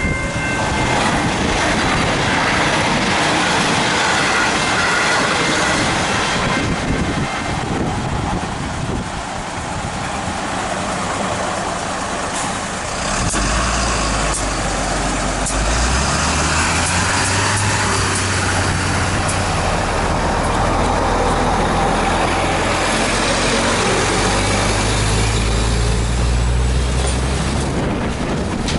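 Level-crossing bells ringing continuously over the noise of a passing train. About halfway through the bells stop as the boom gates lift, and waiting diesel trucks pull away across the crossing, their engines running low and steady.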